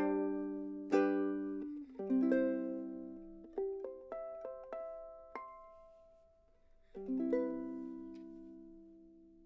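Koa pineapple soprano ukulele strung in low G, fingerpicked: a chord, a run of single plucked notes, then a last chord about seven seconds in that rings out and fades.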